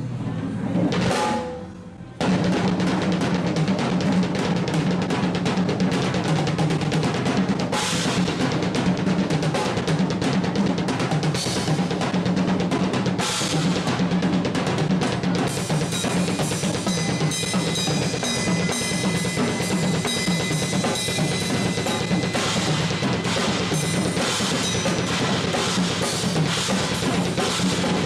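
Drum kit played continuously in a dense, fast pattern of snare and bass drum with cymbals. It breaks off for a moment about two seconds in, then carries on at full level.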